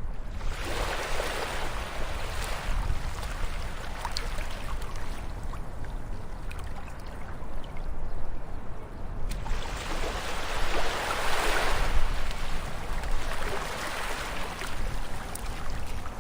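Ocean waves washing ashore: two swells of rushing hiss, one right at the start and one about ten seconds in, each building and fading over a few seconds, over a steady low rumble.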